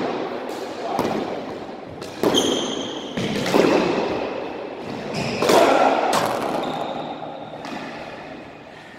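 Squash rally: the ball cracking off rackets and the court walls, several hits a second or two apart, each one echoing around the court, with sneakers squeaking on the wooden floor between shots.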